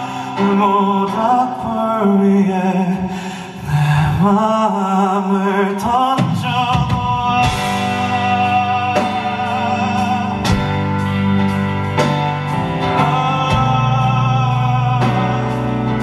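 Live band performance: a man singing with vibrato over keyboard, with the band filling out into bass and drum hits about six seconds in.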